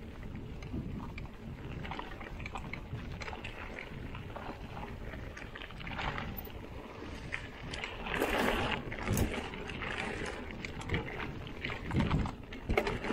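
Mountain bike riding over a rough dirt and leaf-covered trail: steady wind rumble on the microphone and tyre noise, with frequent rattles and knocks from the bike over bumps, louder around eight seconds in and again near the end.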